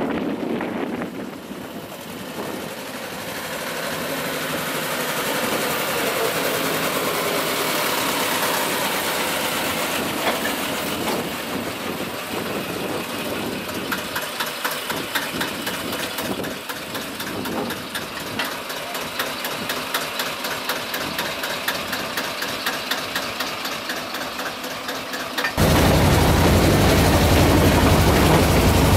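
Small DIEMA narrow-gauge diesel locomotive's engine running as it approaches and passes, with a rapid, even knocking beat from about halfway. Near the end the sound cuts suddenly to a louder, steady rumble of the train running along the track.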